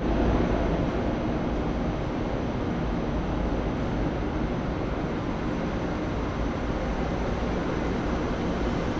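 Steady rumbling background noise of a large train station hall, with no distinct events.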